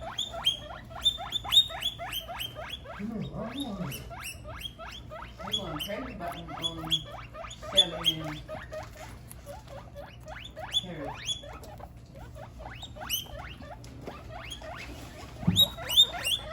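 Guinea pigs wheeking: a rapid, unbroken string of short, high squeals, each rising sharply in pitch, several a second.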